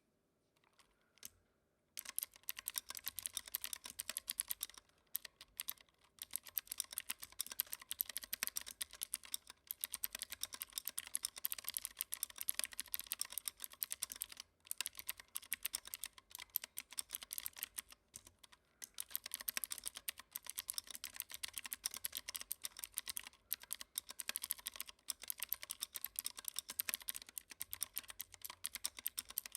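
Continuous fast typing on a WhiteFox mechanical keyboard with clicky Kailh Blue switches, foam-dampened case and lubed stabilisers: a dense patter of sharp key clicks with a few brief pauses. The typing starts about two seconds in.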